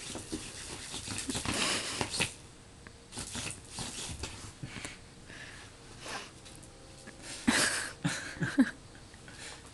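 Two house cats playing: irregular rustling, scrabbling and light knocks in a small room, loudest in a flurry about two seconds in and again about eight seconds in.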